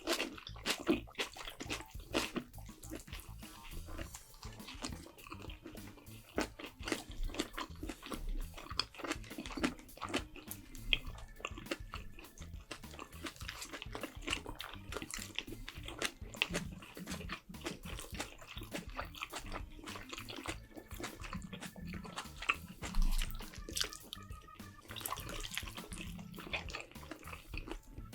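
Close-miked mouth sounds of someone eating: dense, irregular wet chewing, smacking and crunching.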